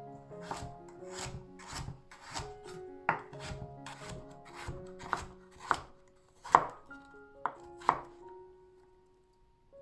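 Knife chopping food on a cutting board: about a dozen cuts at a steady pace of roughly two a second, the loudest a little past halfway, stopping about eight seconds in. Soft background music plays underneath.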